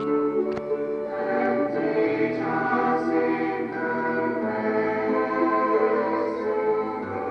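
Sacred choral music, with voices holding long notes in slowly changing chords.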